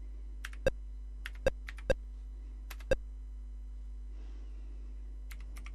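Keys being typed on the Commodore VIC-20's keyboard: about a dozen sharp, separate key clicks in small clusters, with a pause in the middle, as a command is entered to switch off the key-press beep. A steady low hum runs underneath.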